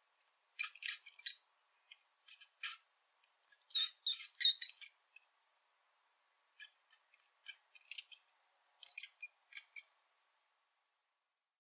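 Mouse squeaking: very high, short chirps coming in quick clusters of several, about five clusters with short silent gaps between them.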